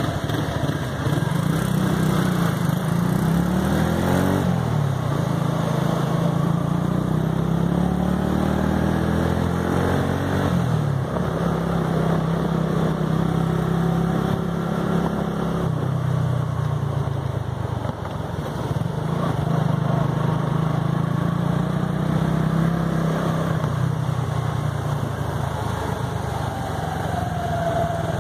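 Motorcycle engine running on the move, its pitch climbing a couple of times and dipping briefly several times as the rider speeds up and eases off.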